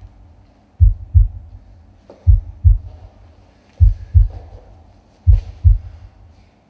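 Heartbeat sound in the soundtrack: low double thumps, lub-dub, four pairs about one and a half seconds apart.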